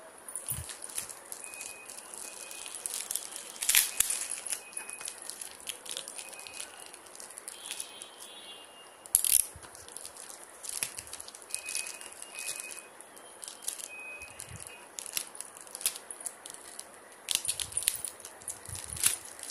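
Plastic courier mailer bag crinkling and rustling as it is handled and pulled open. It goes in irregular crackles, with a few sharper, louder snaps about four seconds in, about nine seconds in and near the end.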